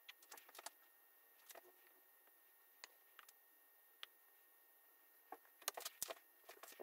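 Faint, scattered small clicks and ticks from a hand handling a plastic mixing cup while pouring epoxy resin into a wooden board, with a few near the start and a louder cluster about five to six seconds in, over a faint steady hiss.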